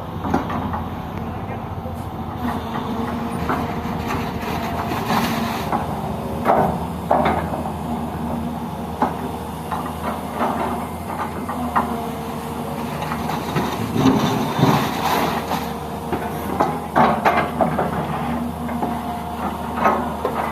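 Heavy construction vehicle's engine running steadily, with voices and irregular louder sounds over it.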